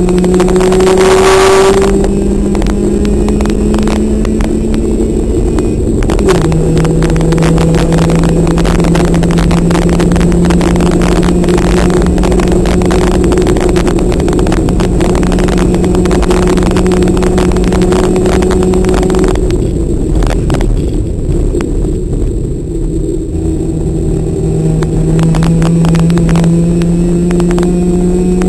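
Race car engine at high revs, heard from inside the cabin. Its pitch drops sharply about six seconds in, holds steady, eases off for a few seconds past the middle, then climbs again near the end as it accelerates.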